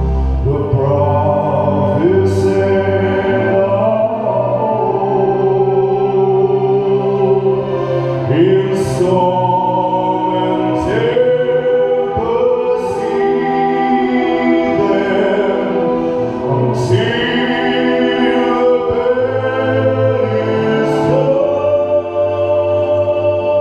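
Male vocalist singing a slow song into a microphone, accompanied by a live symphony orchestra; the voice comes in over sustained orchestral chords about a second in.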